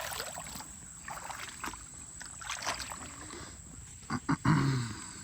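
Crickets trilling steadily on one high pitch, with a few brief rustling, scraping noises about one and three seconds in and a short low murmur of a man's voice near the end.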